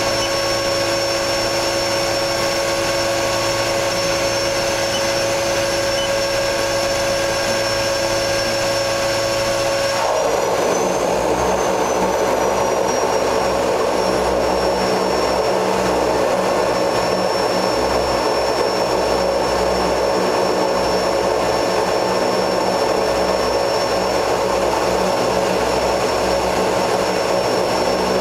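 De Havilland Canada DHC-3 Turbo Otter's turboprop engine and propeller running steadily, heard from inside the cabin, with a high turbine whine over the propeller noise. About ten seconds in, the engine note changes: the whine briefly rises and the sound turns rougher and slightly louder.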